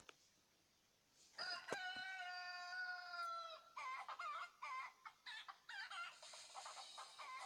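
Chicken calling: starting about a second in, one long held squawk of about two seconds that falls slightly in pitch, then a run of short, quick clucking calls, about two a second.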